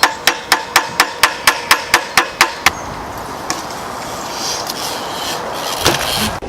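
A rock knocked against a part of a BMX bike to tap it back into place. A dozen quick, even knocks come at about four a second and stop a little under three seconds in, and one more knock comes near the end.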